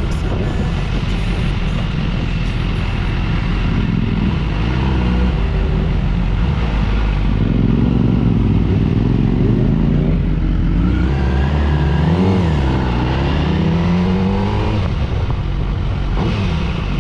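Motorcycle engine running on the road over a steady low rumble of wind, its pitch rising and falling as it revs up and eases off, most clearly through the middle and later part.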